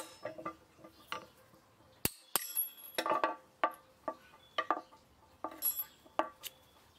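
Steel pin punch being struck to drive a ground-off rivet out of a garden fork's plastic D-grip: irregular metallic taps and clinks, some ringing briefly.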